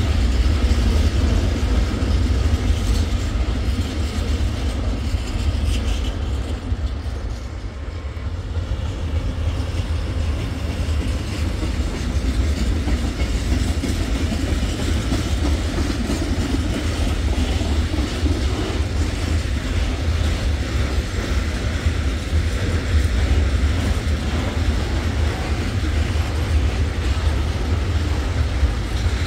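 Freight trains rolling past on the tracks with a steady low rumble: first the tail of a train of open wagons, then, after a brief dip about seven seconds in, a DB Cargo class 189 electric locomotive and its tank and covered wagons.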